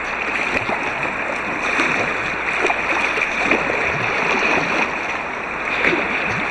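Steady rush and splash of shallow river water around an inflatable kayak, heard through a sealed underwater camera housing.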